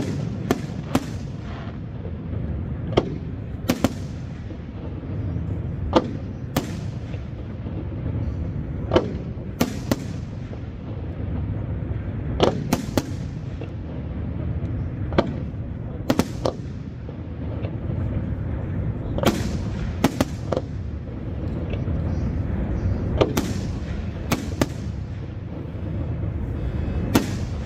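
Aerial firework shells bursting overhead: sharp, loud reports every second or two, sometimes two or three in quick succession, each trailing off in an echo over a steady low background rumble.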